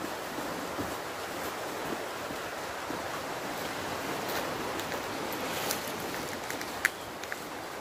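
Steady outdoor rushing noise, with a few faint clicks and one short high chirp near the end.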